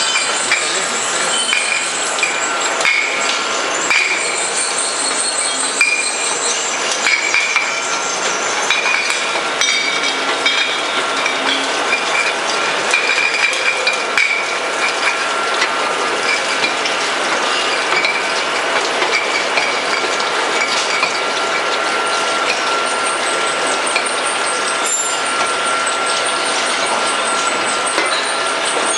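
Rotary plastic-bottle washing machine running steadily: continuous mechanical clatter with many small clicks and clinks, and a faint whine.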